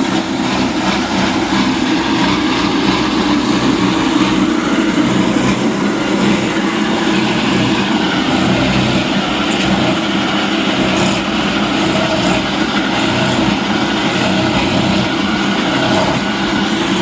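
Motorized coconut grater starting abruptly and running steadily, shredding fresh coconut meat into shavings for coconut milk.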